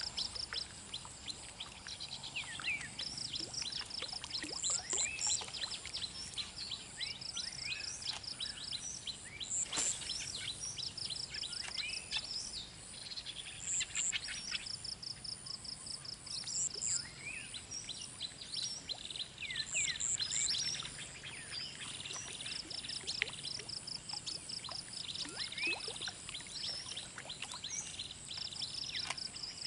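Outdoor ambience of birds chirping with many short falling calls, over insects trilling in high, rapidly pulsed bursts of a second or two that recur every few seconds.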